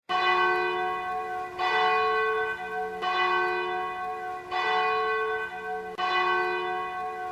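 A bell ringing, struck about five times at even intervals of roughly a second and a half, each stroke ringing on into the next.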